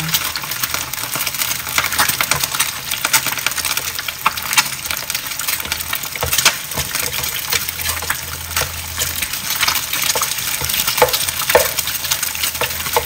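Eggs frying in hot oil in a nonstick pan, sizzling and crackling steadily with frequent sharp pops, while a spatula scrapes and taps through the pan moving the eggs.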